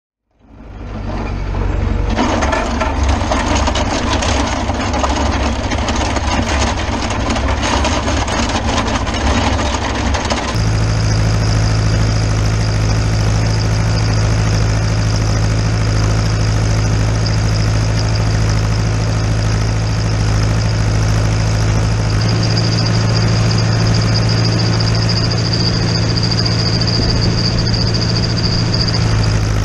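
International Harvester 845XL tractor's diesel engine running as it pulls a meadow harrow. About ten seconds in the sound settles into a steady, deeper drone, and a high whine grows louder later on.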